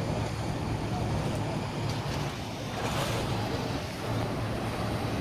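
Boat engine running with a steady low hum, under water noise and wind buffeting the microphone; the wind noise swells about three seconds in.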